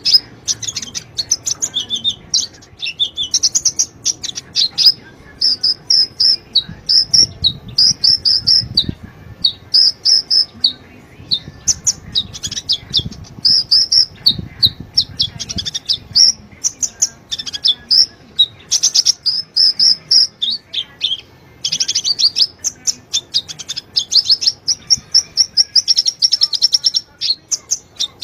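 Sunbird song: short, high-pitched chirping phrases repeated about once a second, running into a fast, continuous twittering trill for several seconds near the end.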